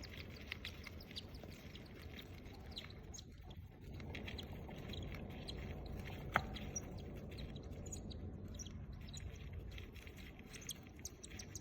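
Nine-day-old cockatiel chicks giving faint, scattered chirps over a steady low background noise, with one sharp click about six seconds in.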